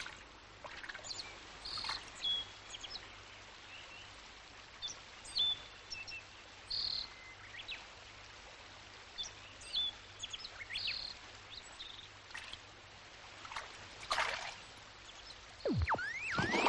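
Forest sound effects: scattered short bird chirps over a faint hiss of flowing water. Near the end a sliding pitch drops low and then climbs again.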